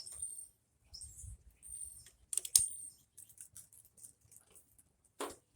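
Small clicks, ticks and scrapes of a heater control cable and its brass attachment being handled and fitted to a heater box, with one sharp click about two and a half seconds in.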